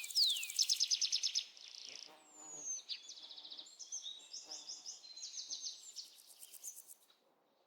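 Several birds calling: quick downslurred whistles and rapid high trills overlapping, with a single gliding whistle about two seconds in, fading to near silence just before the end.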